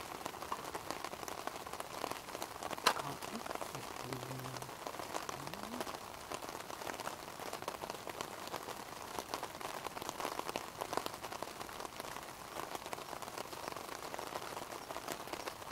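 Wood campfire crackling steadily, with many small snaps and one sharper pop about three seconds in.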